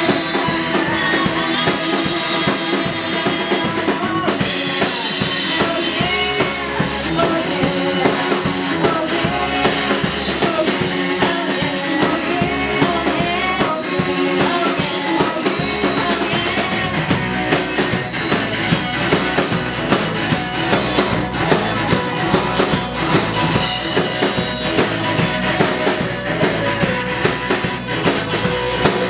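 Live rock band playing in a bar: drum kit, electric guitar and bass, with some singing.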